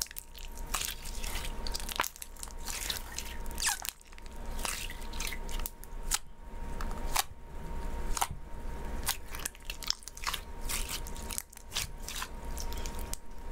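Clear bead-filled slime being squeezed and kneaded by hand, giving irregular wet crackles and sharp pops as air bubbles trapped in it burst.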